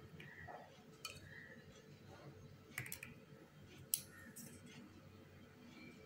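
A few faint clicks and taps of a plastic spoon in a small cup and of cups being handled on a table, the sharpest about four seconds in.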